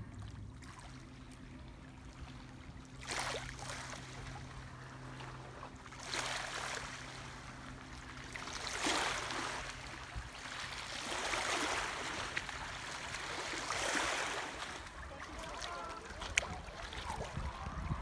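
Small lake waves washing against the shore, the wash swelling and fading every few seconds. Under it runs a faint low steady hum that dies away about two thirds of the way through, and there is a single sharp click near the end.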